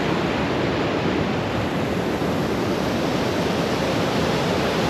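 Small waterfall on a mountain river, water rushing steadily.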